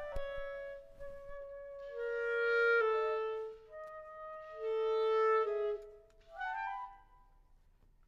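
Woodwind duo with a clarinet playing a slow classical piece in long held notes, two lines moving together, with short breaks between phrases and a quiet stretch near the end.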